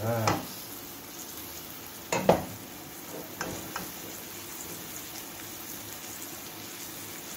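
Flour-dredged chicken breasts frying in melted butter in a pan, a steady sizzle. A sharp knock about two seconds in is the loudest sound, followed by a couple of lighter clicks.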